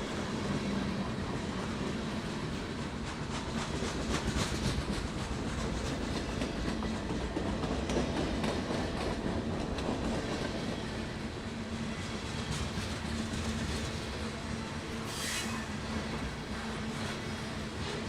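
A train rolling along the track with a steady rumble and a low hum, its wheels clicking over the rail joints. There is a brief hiss about fifteen seconds in.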